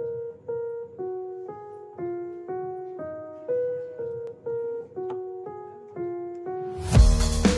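Background music: a keyboard melody of single notes, about two a second, with drums and a heavy bass coming in near the end.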